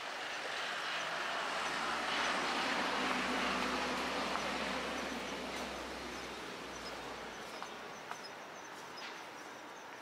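A vehicle passing by: a rushing noise that builds to a peak about three seconds in and fades away by about seven seconds, with a low hum beneath it.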